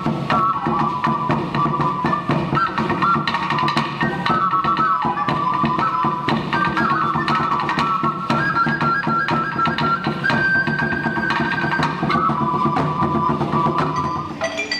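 Live music on Mexican pre-Hispanic-style instruments: a flute plays a melody in held notes that step up and down, over low sustained tones and steady percussion. Near the end the flute melody stops.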